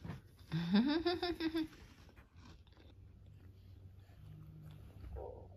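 A short wordless voice sound about half a second in, rising in pitch and then held for about a second. After it come faint soft rustles of bedding as a baby crawls across a duvet.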